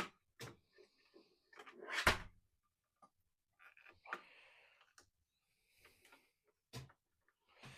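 Scattered clicks, knocks and rustling of hands working inside a desktop PC case, tucking cables back into place, with one louder knock about two seconds in.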